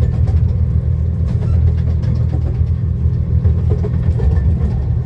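Miniature railway carriage running along the track, heard from inside the enclosed carriage: a steady low rumble with occasional faint clicks.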